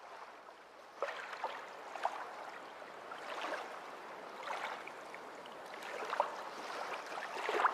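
Water sounds: gentle sloshing and gurgling, with short bubbling blips every second or so.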